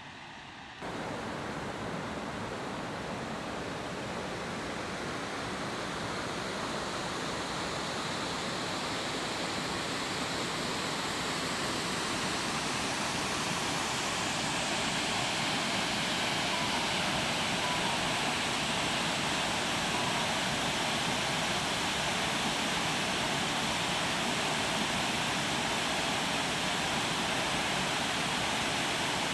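Heavy storm rain pouring down: a steady rushing that comes in suddenly about a second in and slowly grows louder.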